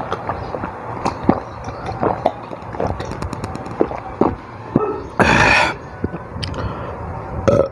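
Close-miked drinking sounds: a man sips from a cup, with scattered small clicks and swallows and one loud, half-second breathy rush about five seconds in.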